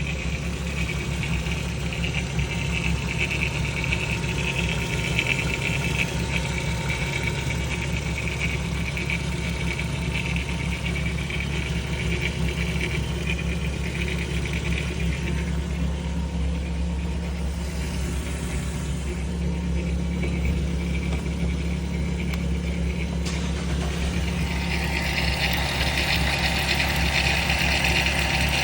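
A 2002 Volkswagen Eurovan's engine running steadily with a spray-can rattle, a metallic rattle like the ball in a shaken aerosol can. The rattle fades in the middle and comes back stronger near the end.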